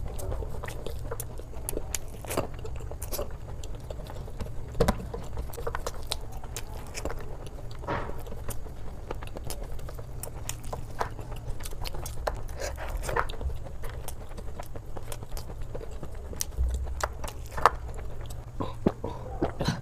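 Close-miked eating: irregular crisp bites and chewing with small crackles and mouth sounds, over a steady low hum.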